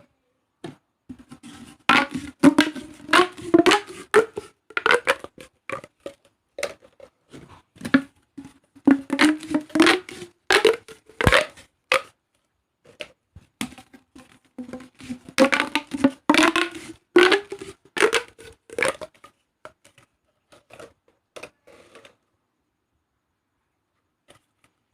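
Corrugated plastic pop tubes being stretched and squashed, giving a crackling run of rapid clicks with a faint low hum. They go in three main bursts, then a few scattered clicks.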